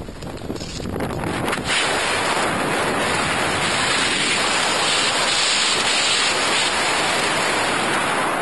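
Wind rushing hard over the jumper's camera microphone as the parachute canopy is dived into a steep turn for landing. The rush rises sharply about a second and a half in and then holds steady.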